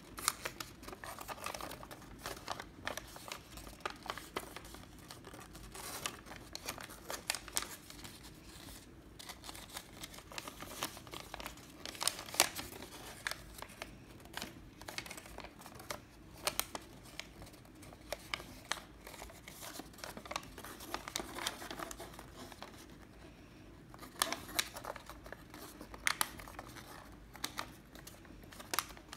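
Origami paper being folded and creased by hand: irregular crisp rustling and crinkling, with sharp crackles each time a fold is pressed flat.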